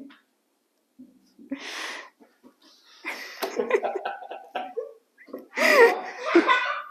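Breathing and a few soft knocks, then a child's high-pitched laughter near the end, the loudest sound here.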